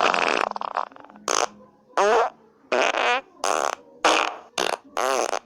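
Fart sound effects from a funny-sounds app: a long rippling one, then a string of about seven short ones, several with a wobbling pitch.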